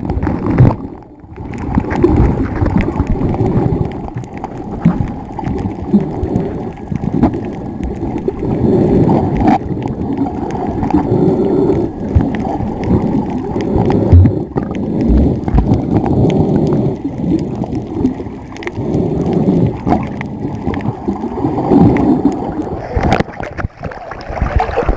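Muffled water noise picked up by a camera held underwater while snorkelling: a low, continuous gurgling rush that swells and eases every second or two. Near the end there is splashing as the camera breaks the surface.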